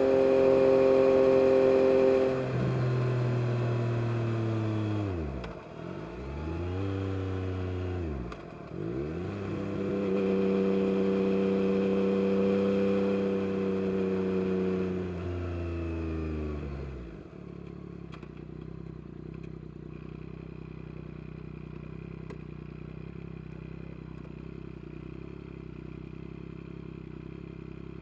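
Yamaha MT-09 SP's inline three-cylinder engine through an Akrapovic carbon exhaust, under way. The revs hold steady, then fall away and pick up again twice. After holding steady once more, the engine drops to a low, steady idle for roughly the last ten seconds.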